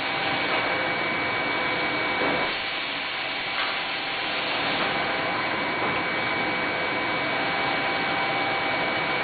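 Small 6 V air blower running steadily, driving air into a tank of water: an even whirring hiss with a thin, steady high whine.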